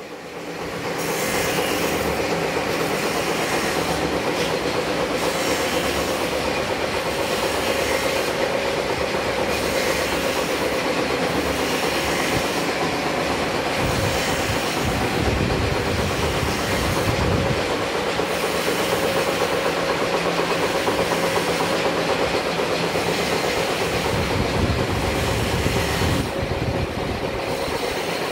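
Servo coil cut-to-length machine running and feeding sheet material from the coil, a steady mechanical rattle and hum that comes up about a second in.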